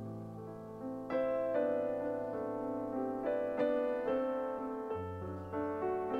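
Soft background piano music, with single notes and chords struck about every half second to a second and left to ring.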